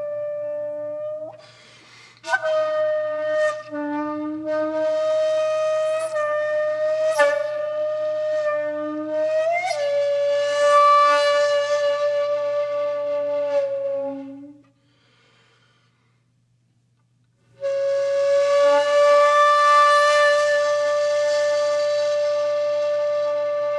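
Background music led by a flute-like wind instrument: a run of notes about a second apart, then long held notes, with a gap of about three seconds past the middle.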